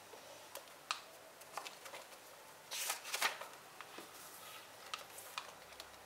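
An A6 six-ring binder being handled: its soft plastic cover and paper pages give light clicks and taps, with a short rustle of pages about three seconds in.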